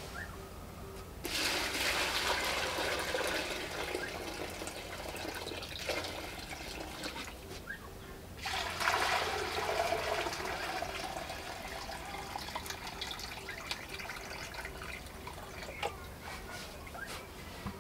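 Steaming liquid poured from a plastic bucket into a basin, splashing and gushing. The pour starts about a second in, eases off for a couple of seconds, then gushes again and slowly tapers to a trickle near the end.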